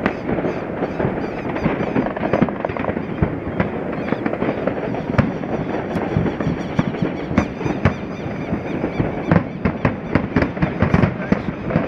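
Many fireworks and firecrackers going off at once: a continuous dense crackle of pops and bangs, with no gap between them.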